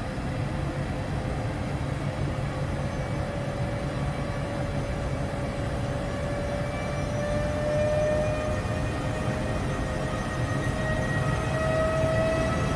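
Electric locomotive pulling a train slowly away, its traction motors giving a whine that rises steadily in pitch as it gathers speed, over a low rumble of the moving train.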